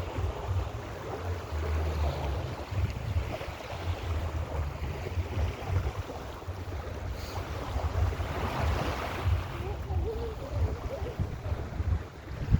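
Mediterranean surf washing onto a sandy beach, a steady hiss that swells as waves break, twice more strongly, about two seconds in and again around eight seconds in. Gusty wind buffets the microphone, adding a low rumble.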